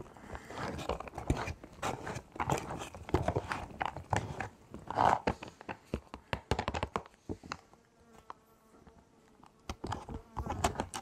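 A long spoon stirring rehydrated freeze-dried beef and pasta inside its plastic meal pouch: irregular scrapes, rustles and crinkles of the pouch. The stirring pauses about eight seconds in, when a faint buzz is heard, then resumes.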